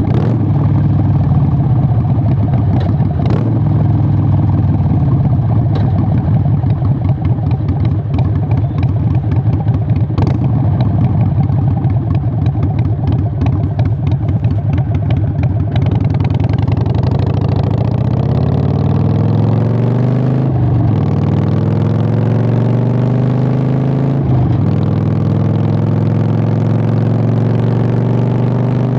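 Harley-Davidson 883 Sportster's air-cooled V-twin through Vance & Hines Short Shots exhaust, running at a steady low pitch with a loping, popping beat. About halfway through it accelerates hard, the pitch climbing and dropping back with each of three upshifts.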